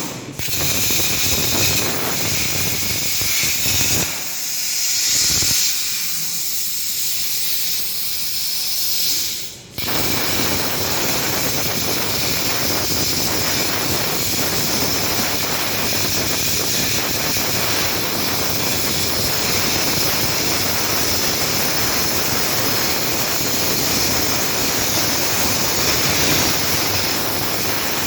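Plasma torch on a SteelTailor Dragon III CNC cutting machine cutting metal: a loud, steady hiss that cuts out for a moment about ten seconds in and then starts again.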